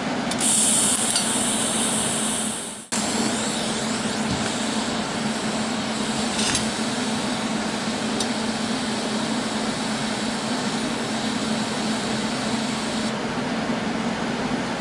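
TIG welding arc hissing during tack welds on thin sheet steel, loudest for about two seconds near the start, over a steady hum.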